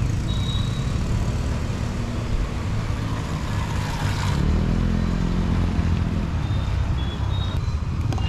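Small commuter motorcycle riding past close by, its engine loudest about four seconds in, over a steady low rumble of road noise.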